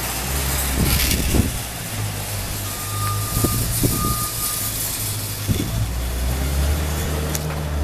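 A vehicle's engine running with a low, steady rumble, with two beeps from a reversing alarm about three to four seconds in. A few knocks come through, the loudest about a second in.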